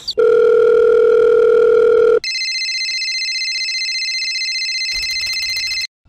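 Electronic beep sound effect: a loud, steady low tone for about two seconds, then switching to a higher, quieter steady tone like a dial tone that cuts off just before the end.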